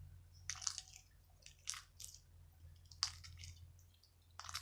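Play-Doh soaked with lotion being kneaded by hand, giving a handful of short, wet squishing and crackling sounds at uneven intervals.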